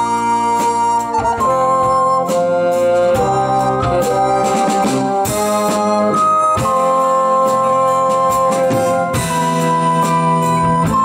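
A live band playing instrumental medieval-style progressive folk-rock, with bassoon and woodwind over keyboard and guitar. Held melody notes change every second or two above a sustained chordal backing, with short plucked or struck notes throughout.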